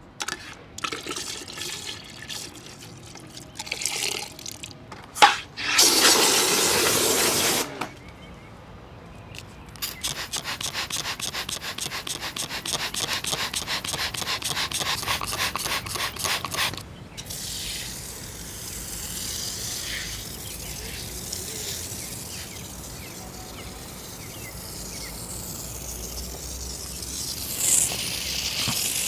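Car wheel washing: water and cleaner spraying and splashing in separate bursts, with a fast, even rattling through the middle and a steady spray hiss near the end.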